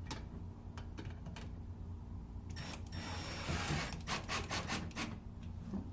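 A cover panel being positioned against a cooler's frame: rubbing and scraping with sharp clicks, busiest in a stretch about halfway through.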